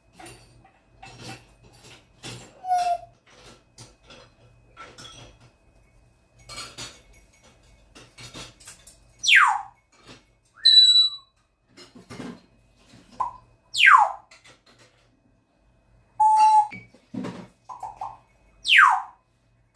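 African grey parrot vocalising: scattered soft clicks and squeaks, then three loud whistles that swoop steeply down in pitch, about four to five seconds apart. Between them come a short beep-like tone and other brief calls.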